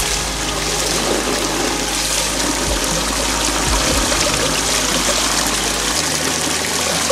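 A jet of water from a small pipe splashes steadily onto wet rocks and into the mouth of a plastic collapsible water container as it is filled.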